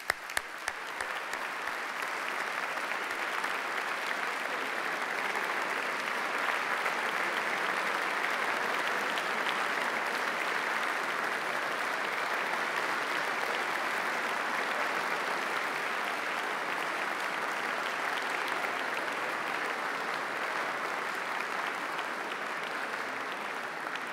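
A large audience applauding steadily, with a few sharp single claps close to the microphone at the start.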